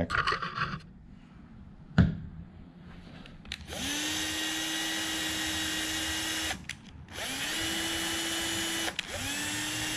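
Bosch cordless drill/driver running a thread-chasing bit through the bolt threads of a restored strut housing, in three runs. Each run spins up with a quickly rising whine, then holds steady. A single sharp knock comes about two seconds in.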